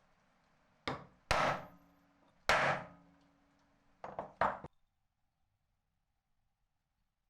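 Five sharp knocks on metal at uneven intervals, each with a brief ringing tail, the third the loudest; then they stop.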